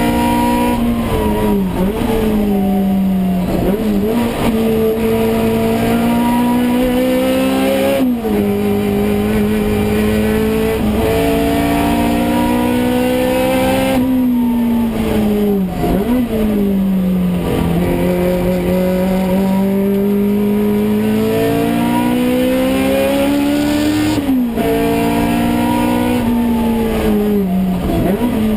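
In-cabin sound of a Toyota AE86 race car's 4A-GE four-cylinder engine at racing speed. Revs climb steadily through each gear, drop sharply at upshifts about eight and twenty-four seconds in, and fall with quick rev dips and blips as it brakes and downshifts for corners early on, around sixteen seconds and near the end.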